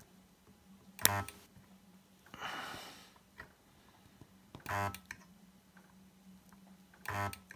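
SUNKO S788H battery spot welder, refitted with a microwave-oven transformer, firing three single weld pulses at its highest current setting. Each pulse is a brief, sharp buzz, coming about once every two to three seconds. A short hiss falls between the first and second pulse, and a faint steady hum sits under everything.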